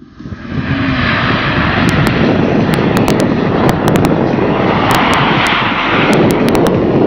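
Engine of a rear-wheel-drive BMW E46 sedan held at high revs while it drifts on ice. The sound rises over about the first second, then stays loud and steady.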